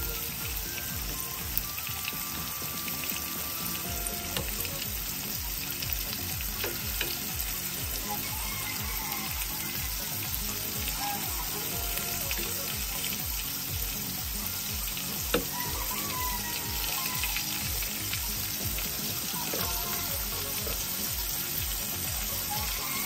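Tempura-battered shrimp frying in hot oil in a pan: a steady, dense sizzle. A few sharp clicks of metal tongs against the pan, the loudest about fifteen seconds in.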